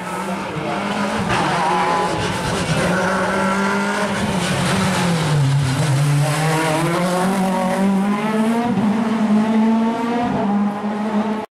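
Rally car engine running hard. Its pitch sinks about halfway through as it comes off the throttle, then climbs again as it accelerates away. The sound cuts off abruptly near the end.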